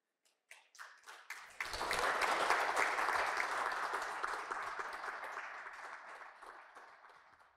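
Audience applause: a few scattered claps, then from about a second and a half in a full round of clapping that fades out steadily toward the end.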